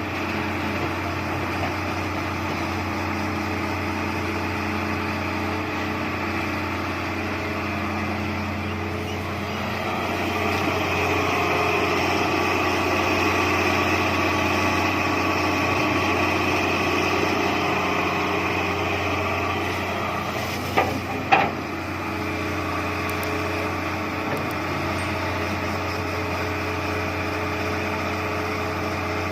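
John Deere 160 excavator's diesel engine running steadily while the machine works, growing louder for several seconds partway through as it takes load. Two sharp knocks sound about two-thirds of the way in.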